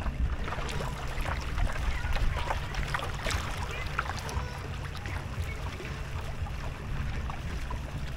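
Mullet splashing at the water's surface all around as predator fish bust the school: many scattered quick splashes and slaps, thickest in the first half, over a steady low rumble.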